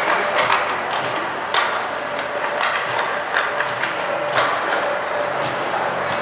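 Ice hockey play in an arena: sticks and puck making scattered sharp knocks and clacks over a steady, echoing rink background.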